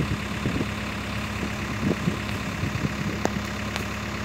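Tractor diesel engine idling steadily, with a few faint clicks over it.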